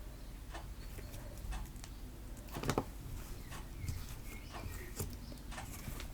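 Homemade PVA-glue slime being squished and stretched by hand, giving scattered soft sticky taps and clicks, the clearest about two and a half seconds in.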